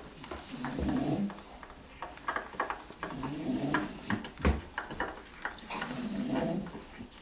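An animal snoring in its sleep: a rasping breath that swells and fades every two to three seconds, with small clicks between.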